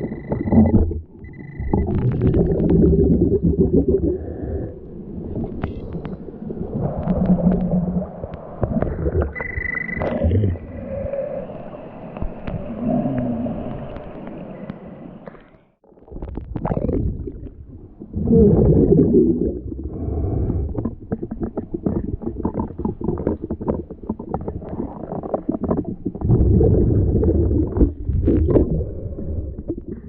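Churning, gurgling water of a waterfall pool heard underwater, with scrapes and knocks as the metal detector coil sweeps the bottom. Short, steady, high beeps from the underwater metal detector sound a few times, near the start and about ten seconds in.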